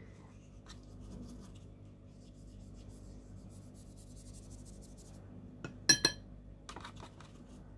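Wet watercolour round brush rubbing paint across heavyweight paper, a faint scratchy sound. About six seconds in come a couple of short ringing clinks.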